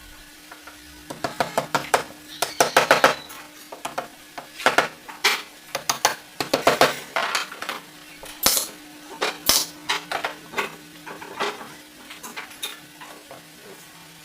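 Irregular taps, clicks and short scrapes of small wooden pieces being handled and worked by hand, some in quick clusters, over a faint steady hum.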